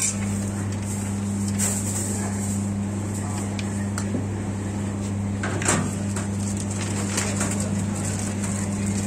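Shawarma stall ambience: a steady low electrical hum under a noisy background of voices, with a few sharp metal clinks of utensils or the fry basket.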